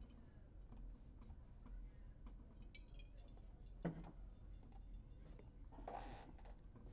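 Near silence: quiet room tone with faint, scattered clicks and ticks, one a little stronger about four seconds in, and a brief soft noise near the end.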